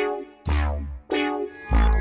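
Background electronic music: synthesizer notes over a beat, with deep bass hits about half a second in and again near the end.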